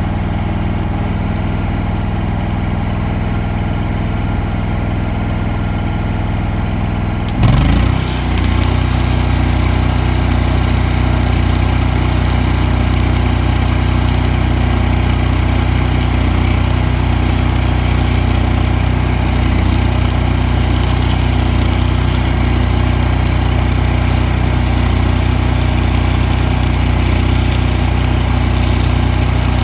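Hobart Champion Elite engine-driven welder running steadily. About seven seconds in, a 6010 stick-welding arc is struck on pipe: the engine picks up under the load, and a steady arc crackle and hiss joins it until the end.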